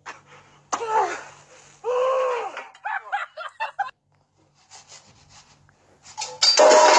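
A person's voice in short, bending exclamations, with the loudest and longest one near the end.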